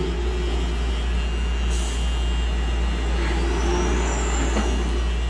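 Steady low hum of a cosmetic-tattoo pen machine running as it works an eyebrow, with faint wavering tones in the middle.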